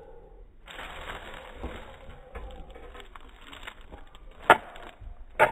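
Plastic bag crinkling and rustling as it is handled, with two sharp snaps about four and five seconds in.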